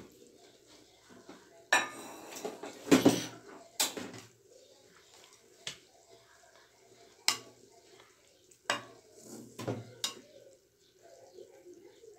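Kitchenware clinking and clattering: a series of separate sharp knocks, loudest a few seconds in.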